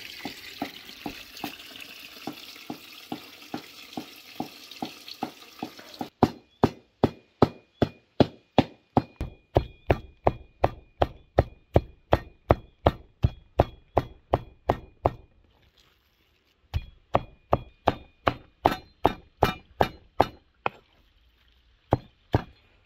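Steel cleaver chopping raw meat into mince on a wooden cutting board, in steady strokes about three a second. The strokes are faint under a hiss for the first few seconds, then loud, with a short pause about two-thirds of the way through.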